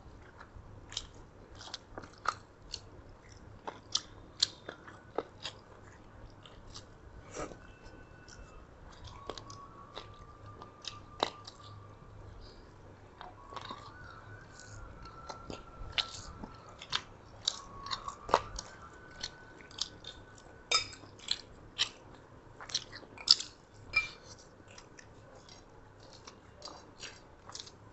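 People eating chicken and pork with rice by hand, heard close on the microphone: irregular chewing, mouth clicks and smacks, and occasional crunches as they bite into the meat.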